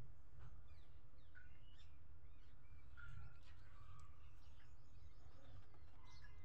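Birds chirping in short, quick calls over a steady low background rumble.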